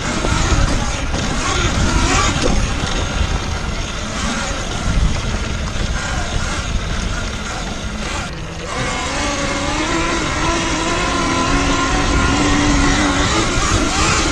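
Wind rushing and buffeting over the mic and knobby tyres on a sandy dirt trail as a Talaria Sting electric dirt bike is ridden fast, with the electric motor whining. The rush drops for a moment about eight seconds in, then the motor whine comes through steadily as the bike pulls again.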